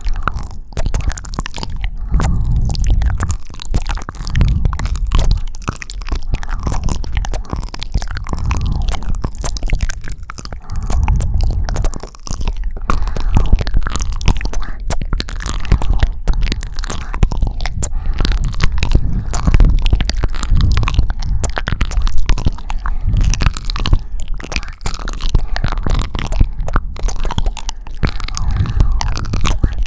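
ASMR mouth sounds right at the microphone: wet kissing and sucking smacks in a dense, unbroken run of small pops and clicks.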